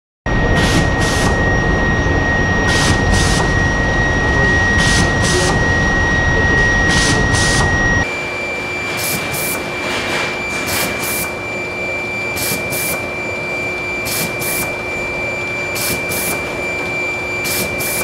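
Manju-making machinery running: a steady whine under a rough rubbing noise, with paired high-pitched swishes about every second or two. About eight seconds in it changes abruptly to a quieter, higher whine as rotating brushes sweep loose flour off frog-shaped buns on a conveyor.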